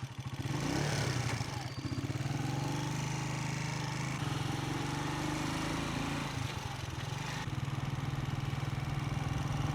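Vehicle engine running as it drives along. Its pitch rises and falls a few times in the first few seconds, then it holds steady.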